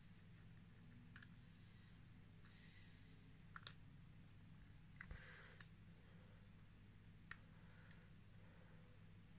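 Near silence over a low steady hum, with a handful of faint clicks as the lower piston ring is sprung by hand into its groove on a Honda QR50 two-stroke piston.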